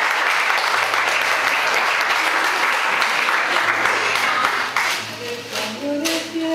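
Audience applauding, the applause dying away about five seconds in.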